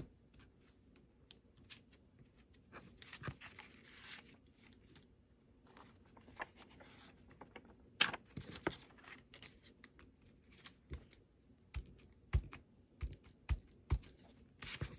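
Soft, irregular taps of a foam ink dauber on paper through a plastic stencil, mixed with paper and stencil rustling and sliding as they are handled. A run of quicker dabbing taps comes in the last few seconds.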